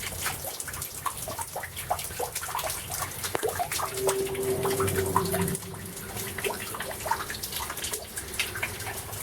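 Water dripping and splashing steadily inside a flooded, leaking room, many small irregular drips. A faint steady hum is heard briefly a few seconds in.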